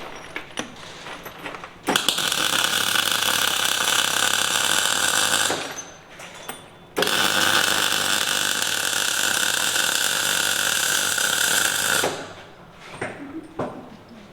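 Power tool run in two long bursts, the first about three and a half seconds and the second about five, with light clatter of handling before and after.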